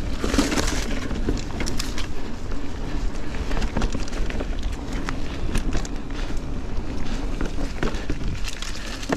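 Giant Trance 29 full-suspension mountain bike ridden fast on dirt singletrack: a steady low rumble of wind and tyres on the trail, broken by many short clicks and rattles from the bike.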